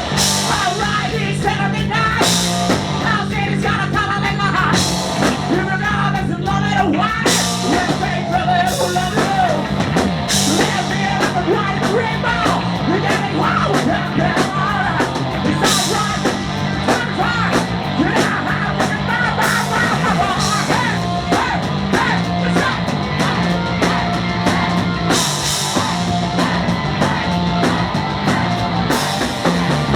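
Live hard rock band playing loud, with driving drums and repeated cymbal crashes, distorted guitar, a steady pulsing bass line and a singer's voice over the top.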